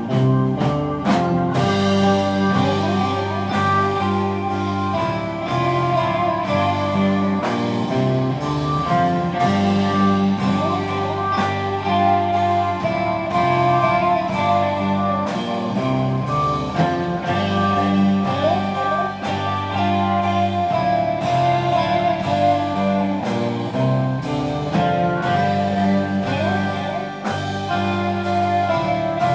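Rock band playing live: electric guitars, including a Fender electric guitar, over bass and drums keeping a steady beat.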